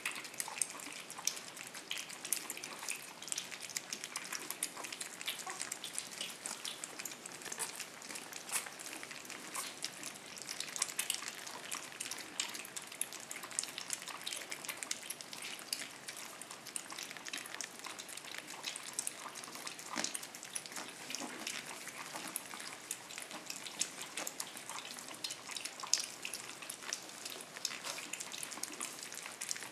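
Shih tzu puppies eating moistened kibble from steel bowls: a continuous patter of small wet smacking and chewing clicks from several mouths at once.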